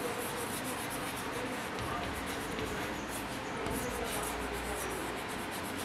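Chalk scratching and tapping on a chalkboard as words are written, faint over steady room noise.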